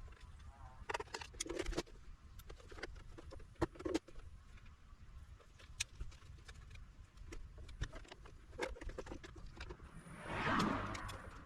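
Small clicks and knocks of hand tools and plastic parts while a portable power station's casing is worked open, with a louder scraping rush near the end.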